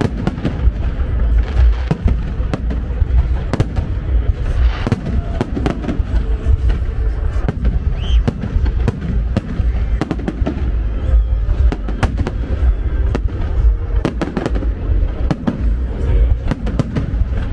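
Fireworks display: aerial shells bursting in a dense, irregular string of bangs with a heavy low rumble between them.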